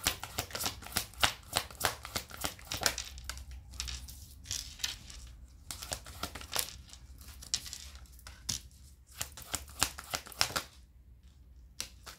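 Tarot cards being handled, shuffled and dealt onto a wooden desk: a rapid, irregular run of card clicks and slaps, with a short lull near the end.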